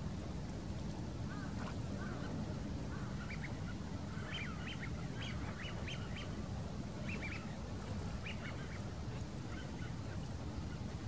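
Waterfowl calling on a lake: a flurry of short calls, thickest in the middle, over a steady low rumble.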